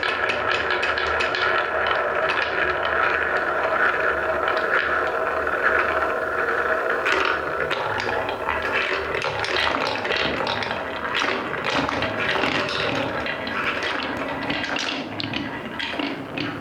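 Coloured balls rolling down a wooden marble-run track: a steady rolling rumble with a ringing note, then from about seven seconds in many quick clicks and clacks as the balls knock along the track.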